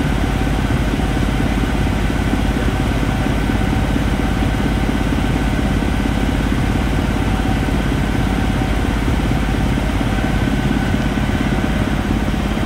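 Steady drone of an aircraft in flight, heard inside the cockpit: engine noise and rushing air, with a few constant hums running through it.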